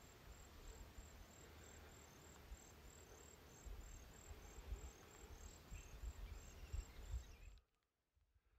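Faint insect chirping, a high short chirp repeating evenly about three times a second, over low wind rumble. It all cuts off abruptly near the end.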